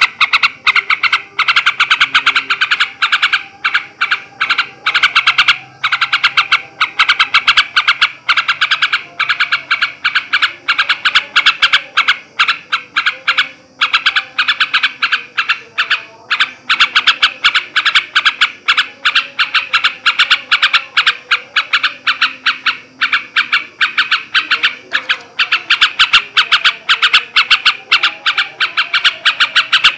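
Male sooty-headed bulbul (trucukan) giving its fast chattering 'ngebren' call: a continuous run of sharp, rapid notes several times a second, without pause.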